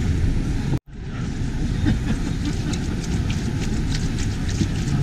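A red plastic spatula scraping and knocking against a wok while food sizzles and is tossed, with many short clicks and crackles, over a steady low background rumble. The sound drops out for an instant about a second in.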